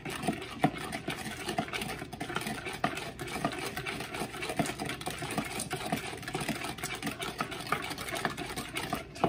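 Metal spoon stirring a melted-butter sauce in a glass measuring cup, clinking and scraping against the glass in a quick, continuous rattle.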